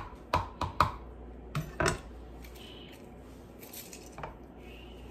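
A kitchen utensil knocking and clinking against a dish as lemon pulp is cut into the juice: five sharp knocks in the first two seconds, then a few fainter clinks.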